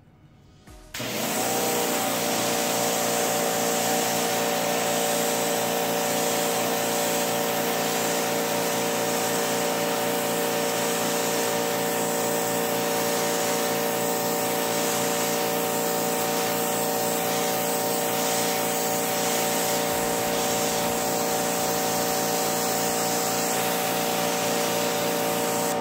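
Sun Joe pressure washer starting up about a second in and running steadily, its motor and pump humming under the hiss of a wide 40-degree fan spray from a multi-nozzle tip striking concrete, until it cuts off at the end.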